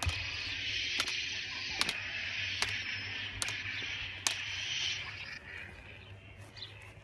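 White plastic pipes used as swords clacking together, six sharp knocks about a second apart, over a steady outdoor hiss that fades about five seconds in.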